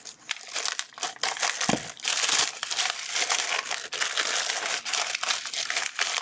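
Plastic packaging bag crinkling and rustling as it is handled and opened, getting busier about two seconds in.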